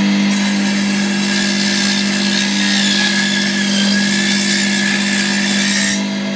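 Electric power tool running at a steady speed and cutting into wood, a constant motor hum under a rasping cutting noise that stops about six seconds in.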